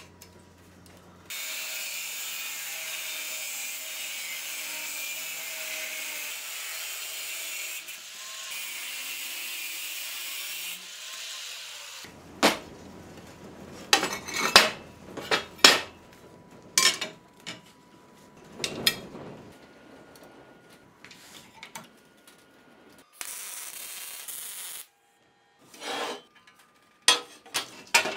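Steel workshop handling on a steel table: a steady hiss that cuts off abruptly about twelve seconds in, then a run of sharp clanks and knocks as steel plates and tools are set down and moved on the steel tabletop.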